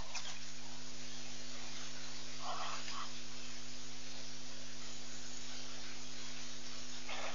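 Steady hiss and electrical mains hum from a live webcam's audio feed, with two short calls, one about two and a half seconds in and one near the end.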